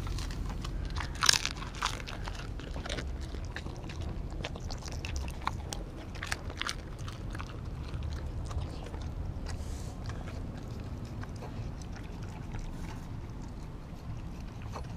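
Pit bull–German Shepherd mix dog biting and chewing raw beef lung: a run of short, sharp mouth clicks and smacks, thickest over the first several seconds, loudest about a second in, then sparser.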